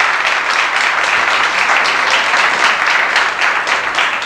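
Audience applauding in a hall, many people clapping steadily.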